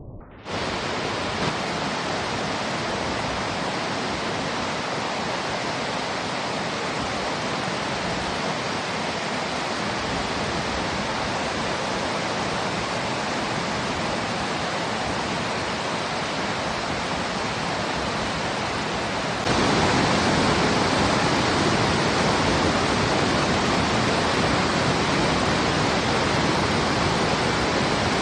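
River water rushing in a steady, dense wash of noise with no separate splashes. It starts abruptly half a second in and becomes suddenly louder about two-thirds of the way through.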